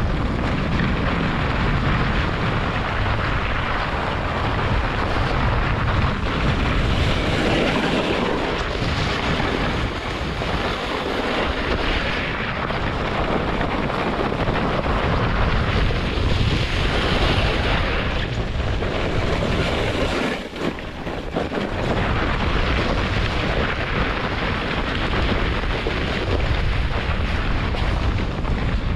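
German Luge 115 sled's runners hissing and scraping steadily over the packed snow of a toboggan run at speed, with wind buffeting the action camera's microphone. The noise dips briefly about two-thirds of the way through.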